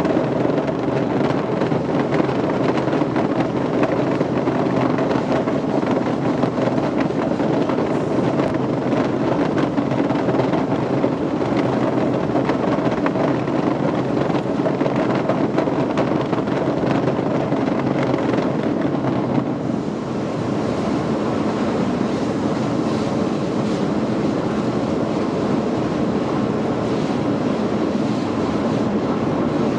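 Steady machine noise, with a slight dip in loudness about twenty seconds in.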